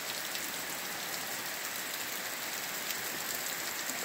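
Steady rain falling, with sharp ticks of single drops scattered through it.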